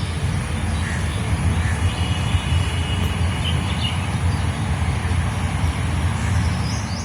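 A steady low rumble, with a few faint bird chirps over it and a short run of repeated bird calls near the end.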